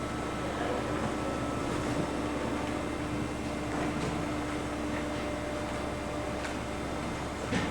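CRAM-A-LOT HX-72-W baler with its conveyor running: a steady machine hum with one constant tone, a few faint clicks, and a sharper knock near the end.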